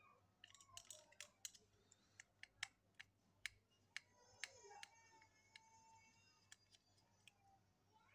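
Faint, sharp clicks and taps of a small screwdriver and hands working on the opened plastic housing and circuit-board screws of a Dingling 1538 cordless hair clipper, about a dozen clicks over the first four and a half seconds, then fewer.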